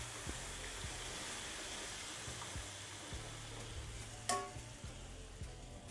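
Semolina roasted in ghee sizzling and bubbling steadily as hot jaggery syrup is poured into the pan. A short clink sounds about four seconds in, and the sizzling is quieter after it.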